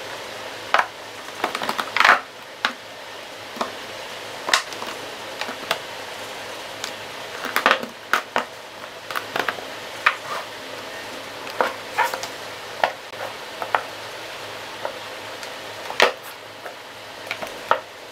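Makeup bottles and tubes (primers and setting sprays) being set down one by one in a vanity drawer: irregular light clicks and taps of plastic and glass on the drawer, over a steady hiss.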